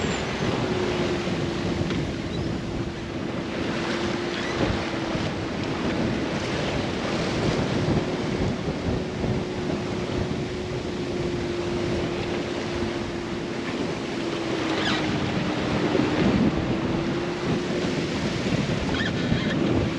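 Wind and breaking waves rushing past a sailing yacht under way in rough seas, with wind buffeting the microphone. A steady low hum runs underneath.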